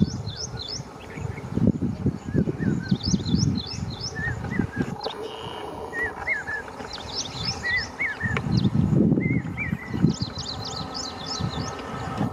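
Small birds chirping, in quick runs of high notes, with lower paired chirps in between. Underneath, a low rumbling comes and goes.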